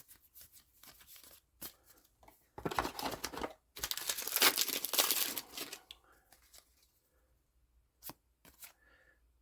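A trading card booster pack being torn open: two long tearing rips, about three and four seconds in, with light crinkling and card handling around them.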